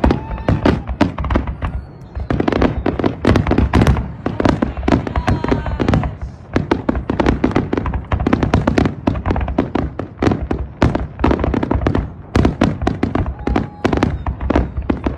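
Aerial fireworks display: a rapid, near-continuous barrage of bangs and crackling, with a few whistling tones that glide in pitch.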